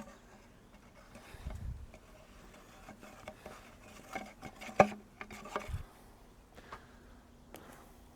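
Faint hand-handling noises from a pool pump lid and its rubber gasket being greased: a few light knocks and clicks, the sharpest about five seconds in, with a couple of dull thumps.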